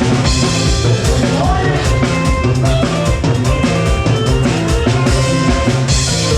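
Rock music with a drum kit keeping a steady beat under sustained instrument notes.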